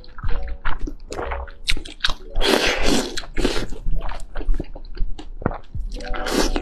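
Close-miked eating sounds from a bowl of noodle soup: wet chewing and lip smacks, with a long noodle slurp about midway and a bite into soft tofu.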